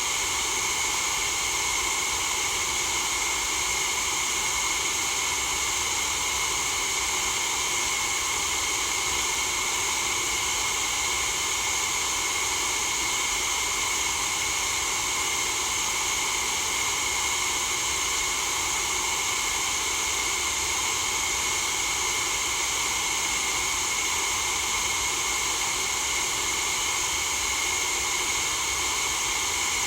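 Steady white noise, a constant hiss with most of its weight in the treble, never changing in level or character.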